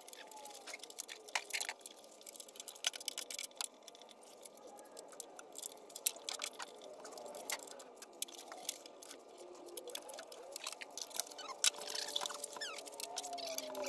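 Irregular small clicks, taps and scrapes of hand tools and metal parts being handled while taking apart a Tesla Roadster power electronics module.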